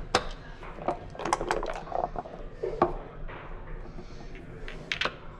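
Clicks and clacks of backgammon play: a game-clock button pressed, a short clatter of dice landing on the board, and checkers being picked up and set down on the board. The sharp knocks come singly and in a quick cluster, the loudest just after the start.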